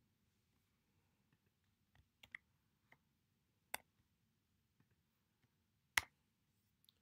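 Sparse computer-keyboard keystrokes: about half a dozen isolated, irregular clicks over near silence, the loudest about six seconds in.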